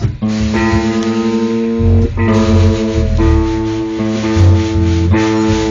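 Electric guitars played through amplifiers with a bass line, strumming held chords that change about once a second over low bass notes.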